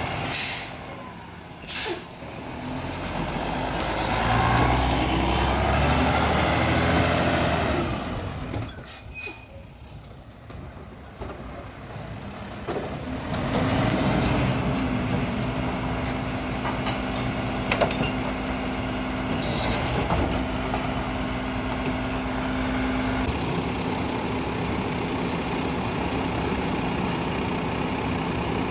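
Mack LEU refuse truck with a Labrie side-loader body: sharp air-brake hisses near the start, then the diesel engine pulling away with rising revs. Scattered clanks and bangs follow, then the engine settles into a steady even hum for the second half.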